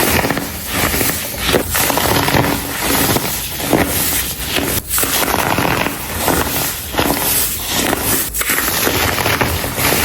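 Compressed baking soda chunks being crumbled and crushed: a dense, crisp crunching and crackling that comes in several bouts with brief pauses between them.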